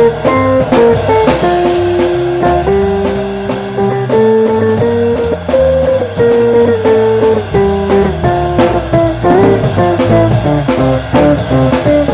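Background music: a guitar melody over a steady drum beat.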